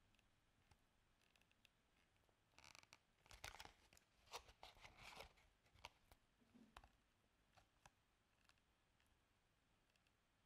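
Faint crinkling and crackling of a stiff, glycerin-free potato-starch bioplastic sheet being flexed by hands. The crackles bunch together from about a third of the way in to past the middle, then thin out to a few single clicks. The missing glycerin plasticiser leaves the sheet rigid, which gives it this brittle, crackly sound.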